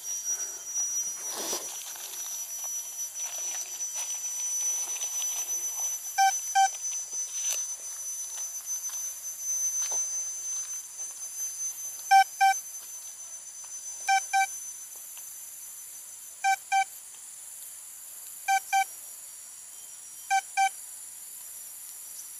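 Hands scraping and rustling in forest soil while digging out a target, then a metal detector's short electronic beeps, six pairs, mostly about two seconds apart, over a steady high insect drone.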